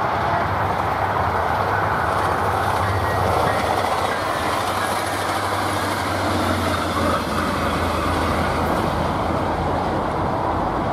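Tri-Rail bilevel commuter train passing close, its wheels running and clattering on the rails, with a steady low engine drone from the F40PH-3C diesel locomotive pushing at the rear, strongest a little past the middle.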